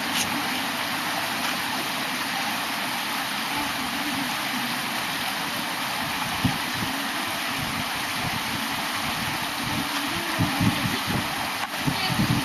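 Steady rush of a mountain valley stream, an even hiss of running water, with wind buffeting the microphone in low gusts near the end.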